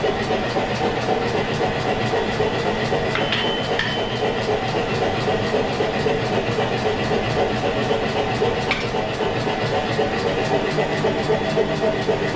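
Steady, loud machine noise with a fast flutter, typical of a blacksmith's workshop. Brief metallic rings come about three to four seconds in, and a sharp click near nine seconds.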